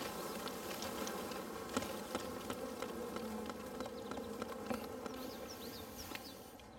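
A mass of honeybees buzzing as a package of bees is shaken out onto the hive's top bars, with scattered light clicks through the buzz. The buzz eases off a little near the end.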